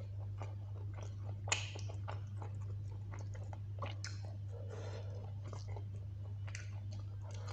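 Close-miked eating sounds: a person chewing soft, saucy chicken curry and rice, with scattered wet smacks and clicks of the mouth and one sharper click about one and a half seconds in, over a steady low hum.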